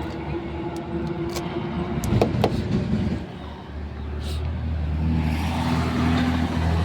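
Motor vehicle traffic on a highway: engines running, with a couple of sharp knocks about two seconds in. After a brief lull, a vehicle's engine draws near and grows steadily louder through the second half.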